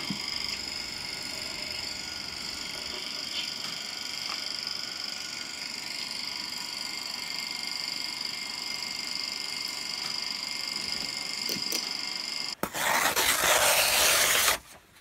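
Steady hiss with a thin high whine running under it. About twelve and a half seconds in, paper is torn in one loud rip of about two seconds.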